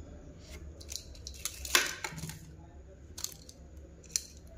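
Handling noise from small toys on a tabletop: a handful of sharp, irregular clicks and taps, the loudest just under two seconds in with a short scrape after it.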